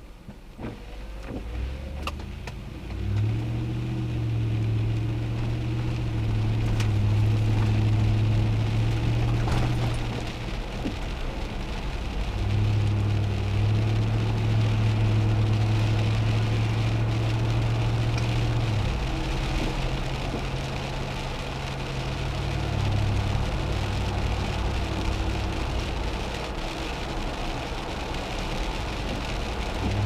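Vehicle driving on a wet road, heard from inside the cabin: a low engine drone that comes and goes in long stretches over a steady hiss of tyres on wet pavement.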